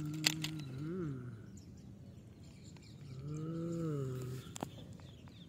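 Two long, low-pitched calls from a farm animal, the first ending with a brief rise in pitch. There are a few light plastic clicks from a toy excavator being handled.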